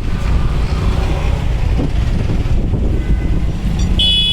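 Street traffic rumbling steadily, with a short, high vehicle horn beep near the end.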